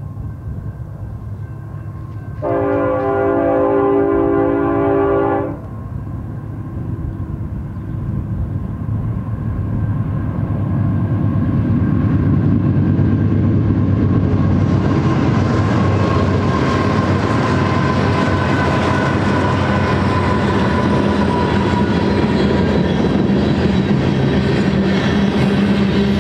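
Union Pacific freight train approaching and passing. Its diesel locomotives' air horn sounds one chord about two seconds in, lasting about three seconds. Then the engines' rumble builds as the lead units go by, followed by the steady rolling and clatter of freight cars on the rails.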